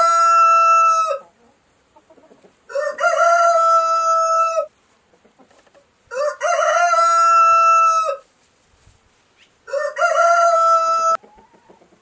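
Rooster crowing four times, about every three and a half seconds. The first crow is already under way and ends about a second in. Each crow rises quickly, holds a long level note, and stops sharply.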